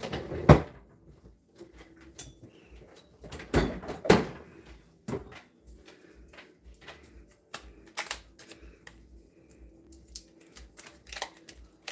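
Kitchen handling clatter: scattered knocks and clicks as things are moved and set down on the counter, the loudest about half a second in and again around four seconds in.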